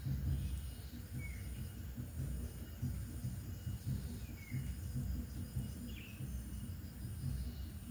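An insect in the undergrowth chirping in an even, high-pitched rhythm, a short buzz repeated a little under twice a second. A low rumble on the microphone lies underneath, and a few brief lower chirps come about a second in, a little after four seconds and at six seconds.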